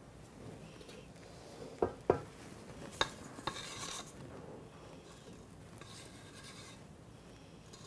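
A silicone spatula scrapes thick cake batter off the inside of a stainless-steel mixing bowl and into a metal bundt pan. It gives soft scraping and a few sharp knocks of metal: two close together about two seconds in and two more a second later.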